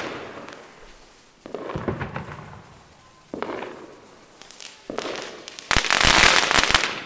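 Fireworks going off: a bang or burst every one and a half to two seconds, each fading away, then a dense crackling barrage near the end that is the loudest part.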